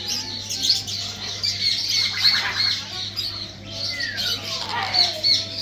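Sun conures calling: a busy run of short, high squawks and chirps, with one long whistle sliding down in pitch about four seconds in.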